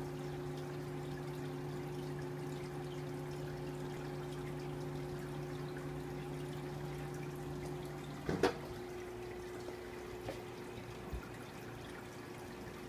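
Aquarium filter trickling water steadily over a low electric hum. A short knock about two-thirds of the way through, after which the hum is lighter, with a couple of faint clicks afterwards.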